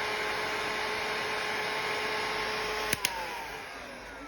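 Bosch heat gun running, a steady rush of air with a constant fan-motor whine. About three seconds in, two sharp clicks as it is switched off, and the fan winds down, its whine falling in pitch as the noise fades.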